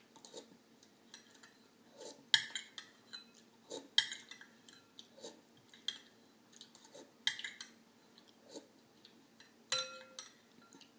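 A spoon clinking and scraping against a bowl of lentil soup as it is eaten, in irregular sharp strikes every second or two.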